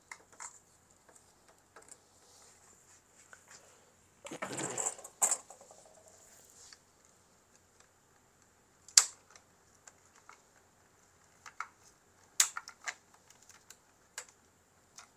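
Small sharp plastic clicks and taps of tweezers and fingers working the ink-tube connectors at the printhead of an Epson L805 ink-tank printer, with a short scraping rustle about four seconds in.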